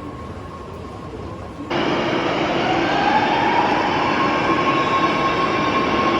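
Electric train running at a station platform, with a steady hum. About 1.7 s in, the sound cuts abruptly to a louder, closer train whose motor whine rises in pitch and then holds steady as it gathers speed.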